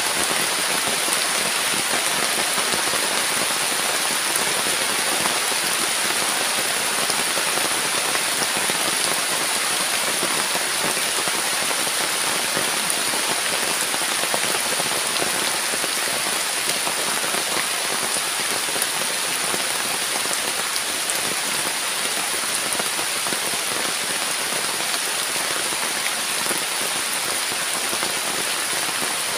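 Heavy rain pouring steadily, an even unbroken hiss, with a steady high-pitched note running through it.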